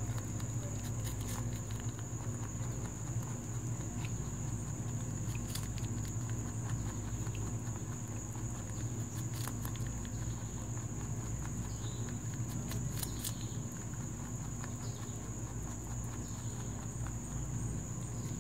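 Pet rabbit chewing a slice of fresh peach held in a hand: soft, irregular crunching clicks. A steady high-pitched whine runs underneath.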